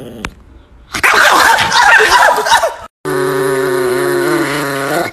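An angry chihuahua snarling and growling: a harsh, ragged snarl for about two seconds, then, after a sudden cut, a steady held growl that stops abruptly near the end.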